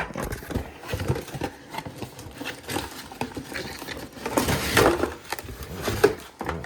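Cardboard box and packaging being handled: scattered rustles and light knocks, with a louder stretch of rustling about four and a half to five seconds in.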